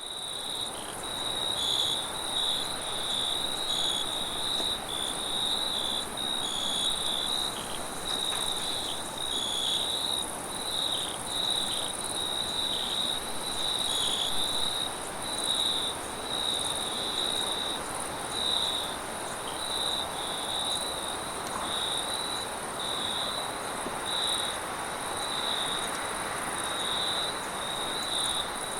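Crickets chirping in a continuous night chorus, with pulsing high trills, over a steady rush of wind.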